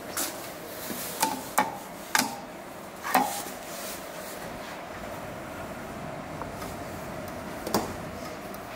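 Footsteps on a tiled floor: a few sharp knocks in the first three seconds and one more near the end, over a steady hum.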